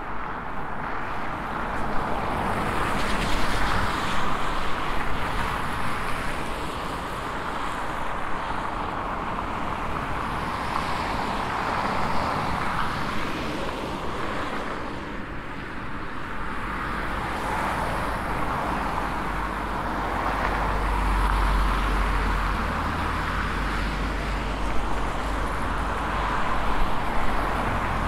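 Steady road traffic, cars passing one after another, swelling and fading. A deeper low rumble joins about halfway through.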